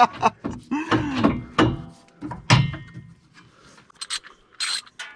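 Men's voices and chuckling in the first half, then a few light knocks and short hisses near the end.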